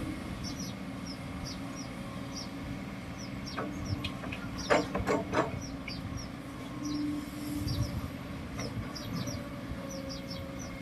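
A bulldozer's diesel engine running steadily, with a quick run of metal clanks about halfway through. Faint high chirps sound over it.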